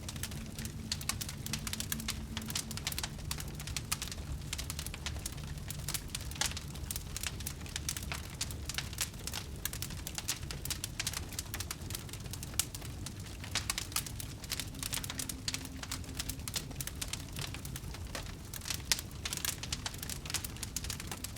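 Wood fire burning, with a low steady rumble of the flames and a dense run of sharp, irregular crackles and pops.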